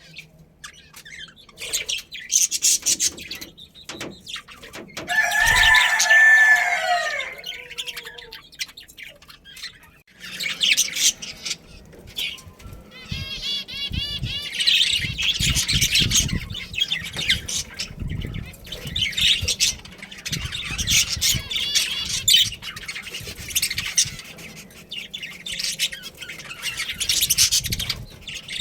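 A group of budgerigars chirping and chattering busily, with wings fluttering through much of it. A louder, lower, falling call comes about five seconds in.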